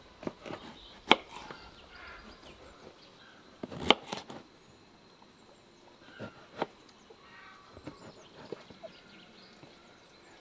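Kitchen knife cutting the stems off eggplants on a wooden cutting board. Three sharp knocks of the blade on the wood come about one, four and six and a half seconds in, the middle one the loudest, with softer cutting clicks between.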